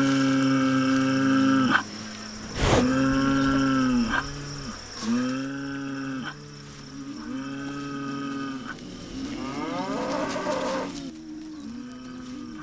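Spanish fighting bulls bellowing again and again, a string of long, deep calls of one to two seconds each. A single sharp knock cuts in about three seconds in.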